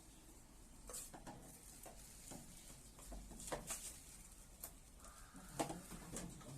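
Scattered light clicks and knocks, a dozen or so irregular taps, the sharpest about three and a half and five and a half seconds in.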